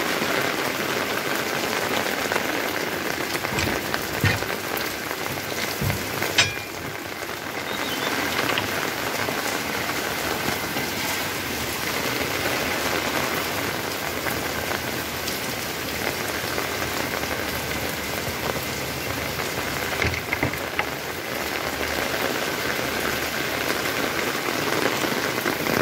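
Monsoon rain falling steadily on a paved lane, walls and rooftops, an even hiss throughout, with a brief sharp knock about six seconds in.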